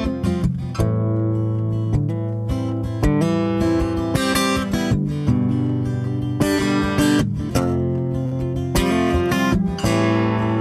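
Acoustic guitar strumming chords: the instrumental opening of a song, before any singing.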